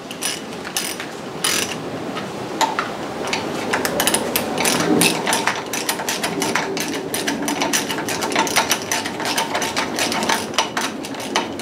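Hand ratchet clicking as it runs down the small 10 mm bolts on an outboard's thermostat cover: a long, uneven run of quick pawl clicks as the bolts are snugged up.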